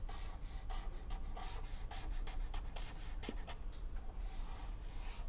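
Pen scratching on paper in quick short strokes as someone writes, over a low steady hum.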